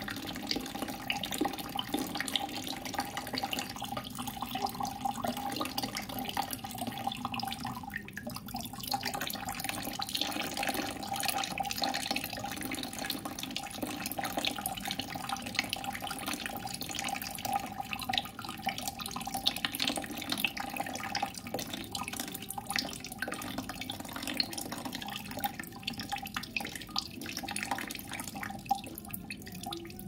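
Water running and trickling steadily, with many small drips.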